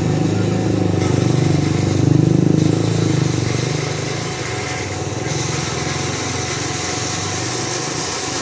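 Chainsaw engine running under load as it cuts lengthwise through wood, loudest about two to three seconds in and then easing slightly.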